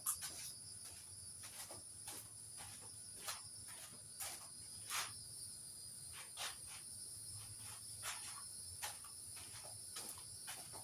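Crickets singing steadily in the background, with a dozen or so scattered light clicks and taps from handling wood and tools.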